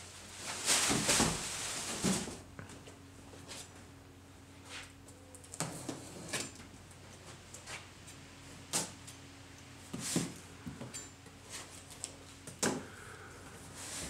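Cardboard shipping boxes being handled and opened: a rustling scrape of cardboard as a box is lifted, then scattered knocks and taps as boxes are set down, tape is cut with a knife and flaps are pulled open.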